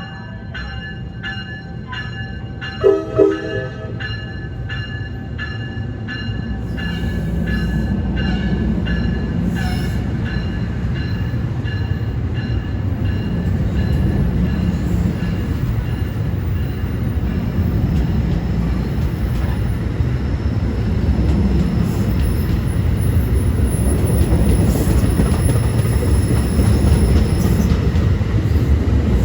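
A bell ringing about twice a second, with two short train horn blasts about three seconds in. From about seven seconds a train passes on the Northeast Corridor main line, a steady rumble of wheels on rail that grows louder toward the end.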